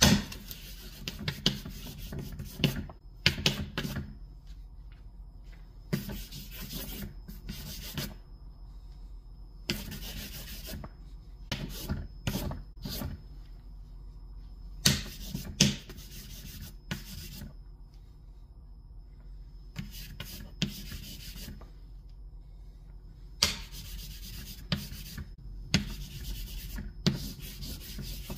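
Willow charcoal scraped hard back and forth across sketchbook paper in repeated scratchy bursts of scribbling, each about a second long with short pauses between.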